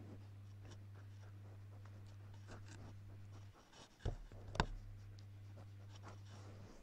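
Faint scratching and rubbing of a sheep's wool and muzzle against a webcam, with two sharp knocks about four seconds in as it bumps the camera. A steady low hum runs underneath and drops out briefly just before the knocks.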